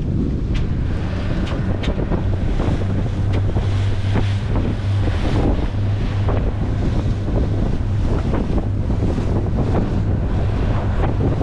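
Wind buffeting the microphone aboard a small boat, over a steady low hum and the wash of water, with scattered short clicks.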